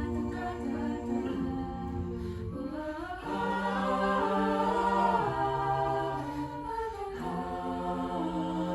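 An a cappella vocal group singing held chords in harmony with no instruments, a low bass line sustained beneath them. The chord changes about three, five and seven seconds in.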